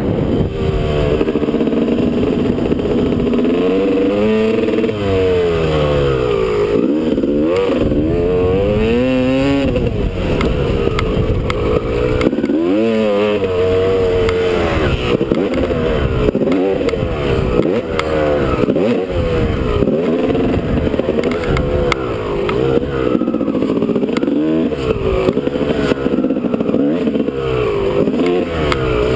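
Two-stroke Honda dirt bike engine being ridden hard, revving up and dropping back again and again as the rider throttles through the track's jumps and turns. It is heard close up from a helmet camera.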